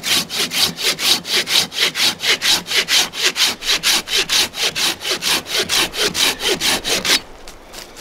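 Silky Sugoi curved pull saw with extra-large teeth cutting through a dry deadwood log, with fast, even rasping strokes, about four to five a second. The sawing stops abruptly a little after seven seconds.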